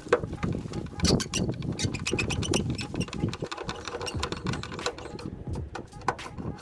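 A quick run of metallic clicks and rattles from a hand tool working at the mounting of a VW Vanagon's folding door mirror, thinning out over the last few seconds.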